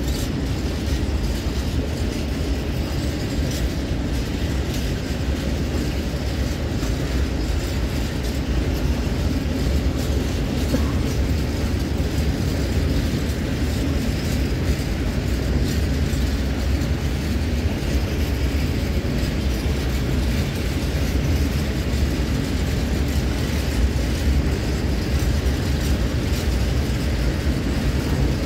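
A long freight train of open-top gondola wagons rolling past: a steady, low rumble of wheels on the rails, with faint clicking from the wagons.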